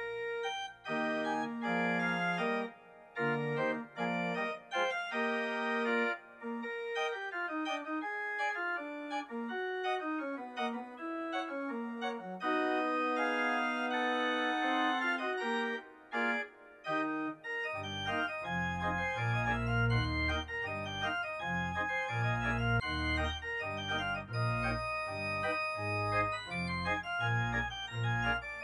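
Organ music: a slow melody of held notes, with deep bass notes coming in about eighteen seconds in and filling out the sound.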